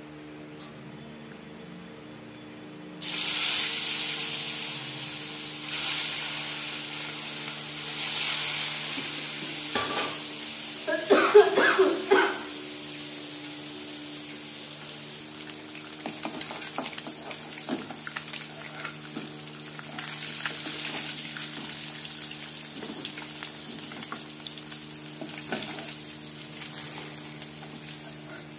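Hot oil sizzling in an aluminium kadai. The sizzle starts suddenly about three seconds in and slowly dies down, with a short clatter of utensils a little after, then keeps on more quietly with small clicks.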